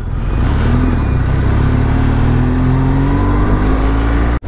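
BMW R 1200 GS boxer-twin engine running under way, heard from the rider's seat with wind noise, its pitch rising steadily as the bike accelerates. The sound cuts out abruptly for an instant near the end.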